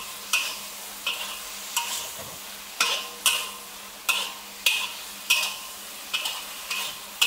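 Metal spatula scraping and clanking against a wok about every half second, stir-frying eggplant pieces that sizzle in the pan. The sugar is being mixed in as the last seasoning, with the eggplant nearly done.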